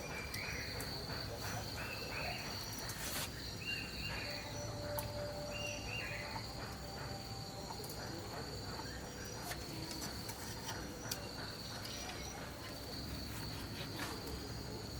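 Insects chirring in a steady high drone. A few short falling calls in the first six seconds and occasional sharp clicks sound over it.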